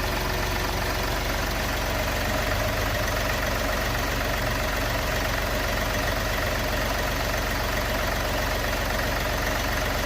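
Three-cylinder diesel car engine idling steadily. The owner says the injector knock is gone after an injector cleaning and that the remaining noise is normal diesel clatter.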